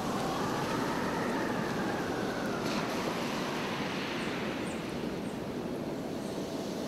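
Strong, gusty blizzard wind rushing steadily, with a faint whistling tone rising and falling in the first half.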